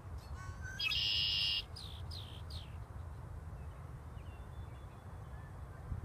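Male red-winged blackbird singing its song once: a few short rising notes, then a loud buzzy trill of well under a second, followed by a few short falling notes. A steady low rumble runs underneath.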